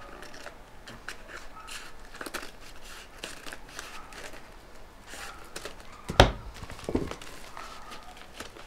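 Scissors cutting through a paper mailing envelope, with the paper crinkling and tearing as a cut strip is pulled away. Two sharp knocks a little after six and seven seconds in.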